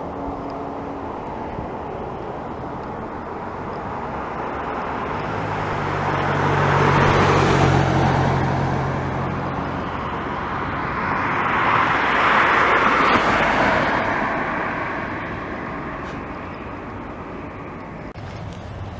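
Two road vehicles driving past one after the other, each a swell of tyre and engine noise that rises and fades. The first has a low engine hum under it and peaks about seven seconds in; the second passes about five seconds later.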